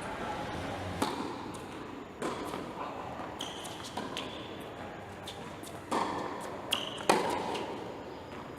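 Several sharp thuds, like a ball striking a hard floor or wall, each ringing on in a large echoing hall, with short high squeaks like sneakers on a court floor in between.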